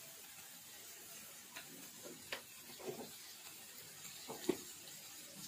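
Thick spinach curry cooking on high heat in a steel pot: faint, irregular pops and ticks over a low hiss as the leftover water in the spinach cooks off.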